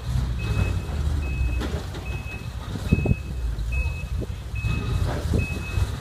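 Backup alarm of a forestry bucket truck beeping steadily, a short high beep a little faster than once a second, over the low rumble of the truck's engine as it reverses.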